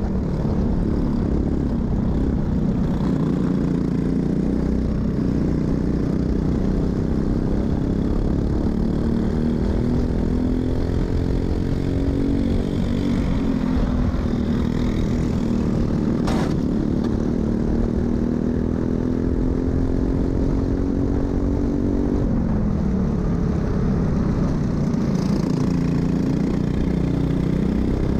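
Racing kart engine running hard through a practice lap, its pitch climbing steadily along the straights, falling off suddenly about three-quarters of the way through as the driver lifts for a corner, then climbing again. A single sharp click a little past halfway.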